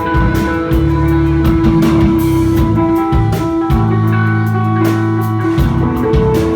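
Three-piece desert rock band playing live: a spacey, droning electric guitar over long held bass notes and a steady drum beat with cymbals.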